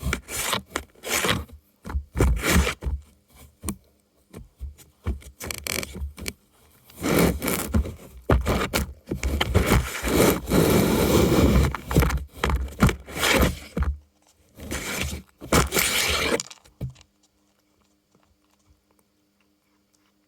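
Cardboard being scratched and scraped in irregular rasping bursts, with some crunching and tearing, the sound of a cardboard food toy being worked at to get at the treats inside. The scratching stops about three seconds before the end.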